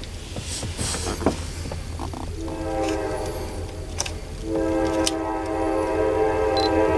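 Locomotive air horn sounding a long, steady chord. It comes in faintly about a third of the way through, jumps louder a little past halfway and keeps swelling as the train approaches.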